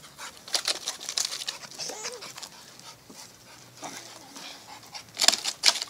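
American Staffordshire Terrier panting hard in short rapid breaths, with a louder run of three pants near the end.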